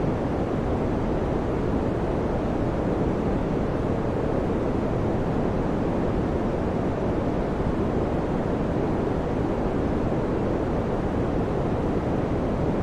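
Electric fan running steadily: an even, deep whooshing rush of air that never changes.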